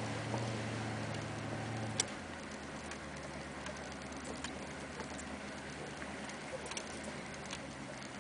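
V8 diesel engine of a 1991 GMC Suburban running steadily under light load, heard from inside the cab, with scattered light ticks and knocks. About two seconds in there is a sharp click, and the engine note drops lower and quieter.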